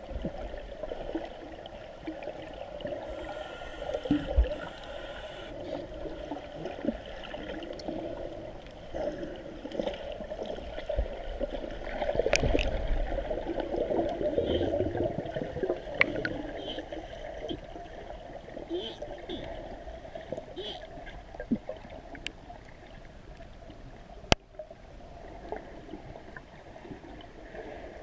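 Water gurgling and splashing, swelling and fading, with a few sharp clicks scattered through it.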